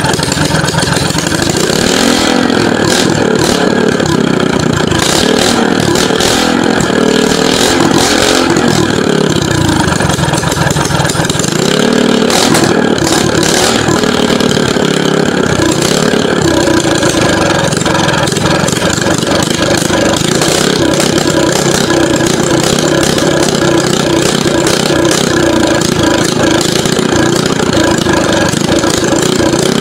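Small pump-boat gasoline engine running after a choked start, its speed rising and falling a few times in the first half, then settling into a steady run.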